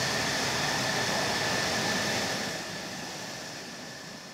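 F-16 fighter jet's turbofan engine running at ground idle: a steady rushing roar with a high whine, fading out over the last two seconds.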